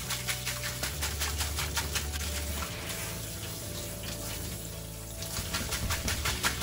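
Tap water running onto boiled noodles as they are rubbed and rinsed by hand in a plastic colander in a steel sink, washing the slime off their surface. Background music with a steady beat plays over it, and the beat drops out for a couple of seconds in the middle.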